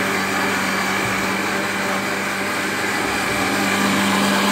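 Countertop electric blender running steadily, churning chopped vegetables in liquid. It gives a constant whir over a steady low hum.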